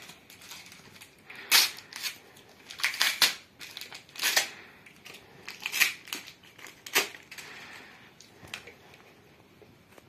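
Foil wrapper of a Panini FIFA 365 card packet being torn open and crinkled in the hands: half a dozen sharp crackling bursts over the first seven seconds, the loudest about one and a half seconds in, then only faint handling.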